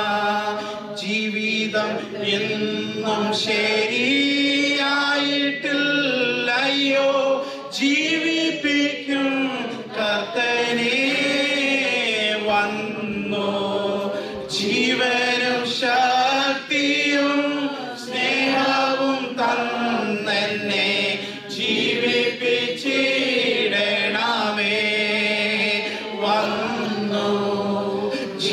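A man leading a congregation in singing a Malayalam worship song together, many voices on held, gliding notes.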